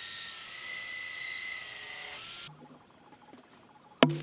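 Magnetic drill working as a drill press, its motor whining as the bit cuts a hole through a metal plate. The loud cutting noise stops abruptly about two and a half seconds in, and a sharp click comes near the end.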